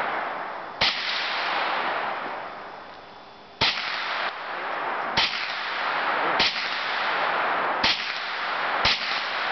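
Hi-Point 9mm semi-automatic carbine fired six times at uneven intervals, each sharp shot trailing off in a long echo.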